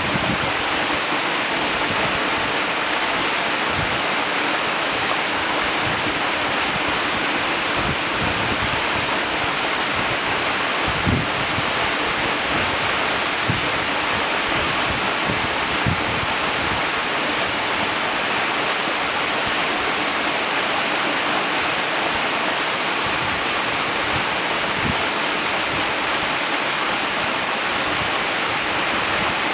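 Waterfall: water pouring steadily with a constant rushing hiss, and brief deeper splashes now and then.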